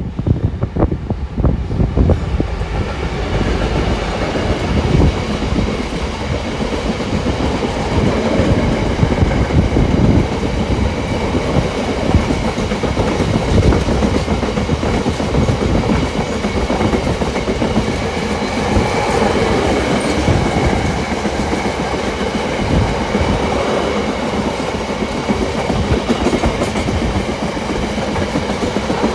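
Freightliner Class 66 diesel locomotive 66531 hauling a freight train past, its wagons' wheels clicking and clacking over the rail joints in a continuous rumble. The wheel clatter is densest in the first couple of seconds.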